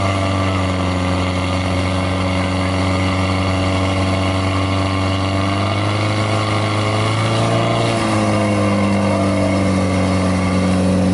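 Portable fire pump's engine running hard and steady, pushing water through the hoses to the nozzles. Its pitch rises about six to seven seconds in, then drops to a lower steady note around eight seconds in.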